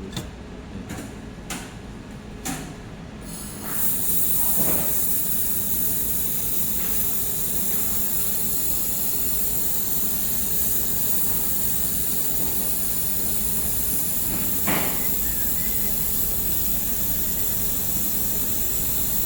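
A few light clicks, then about three seconds in a Reci air-cooled handheld laser welder starts a continuous weld: a steady, even hiss of gas and welding that holds for about sixteen seconds and cuts off suddenly when the trigger is released.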